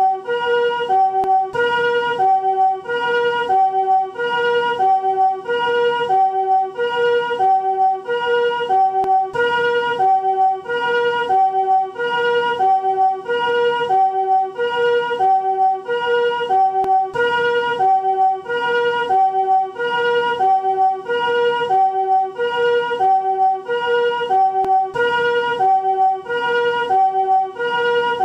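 Japanese ambulance siren, newest chord-tone type, sounding its hi-lo 'pee-poh' call. Two steps alternate steadily and evenly, each a chord of several pitches rather than a single tone.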